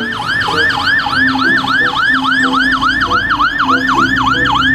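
Fast yelp siren of a fire engine, each cycle jumping up in pitch and sliding back down, repeating about four times a second without a break.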